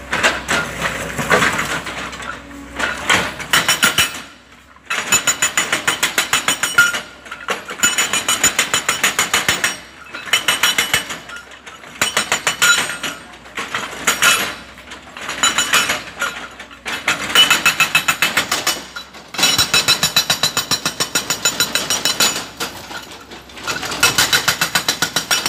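Excavator-mounted hydraulic rock breaker hammering hard rock boulders. It strikes in rapid, even blows, in runs of about two seconds with short pauses between them.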